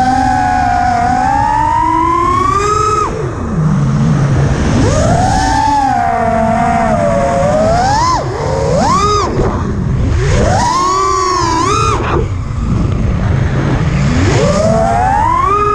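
FPV quadcopter's electric motors whining, the pitch sweeping up and down with the throttle and dropping away sharply several times as the throttle is cut, over a low rush of wind on the onboard microphone.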